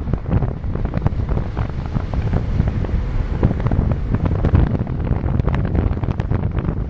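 Wind buffeting the microphone of a camera carried along a street: a steady low rumble with many small knocks and rattles.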